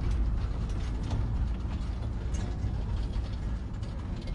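Steady low rumble of a moving vehicle heard from inside, with light rattling and clicks over it.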